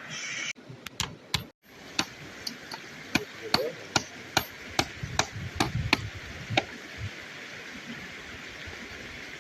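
A run of sharp knocks, about two or three a second, that stops a little over halfway through, over a steady hiss.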